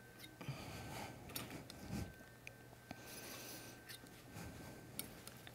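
Faint rubbing and scraping with a few small clicks from palette knife oil painting work, over a faint steady hum.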